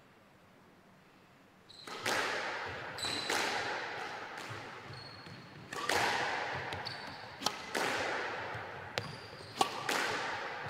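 Squash rally: the hard rubber ball is struck by racket and hits the walls in a string of sharp cracks, about one a second after a quiet start, each ringing out in the echo of the enclosed court. Short high squeaks of shoes on the wooden floor come between the hits.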